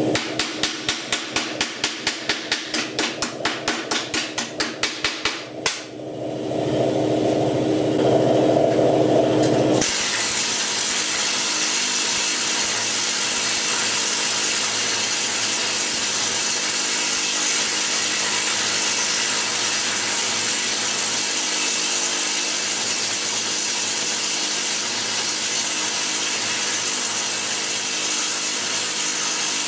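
Pneumatic planishing hammer working a steel panel. About ten seconds in it settles into a loud, steady rapid rattle as the sheet steel is moved under the die to stretch it. Before that comes a run of sharp, even taps, about four a second, for some five seconds.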